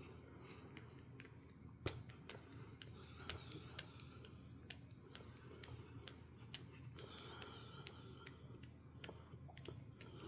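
Faint, irregular small clicks, about one or two a second with a sharper one about two seconds in, over a low steady hum.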